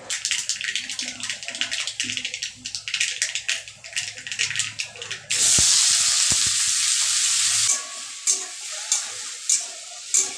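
Dried red chilli and spices crackling and spitting in hot oil in a wok. About five seconds in, chopped bottle gourd is tipped into the oil and it sizzles loudly. The sizzle dies down as a flat metal spatula stirs the pieces with regular scraping strokes about every half second.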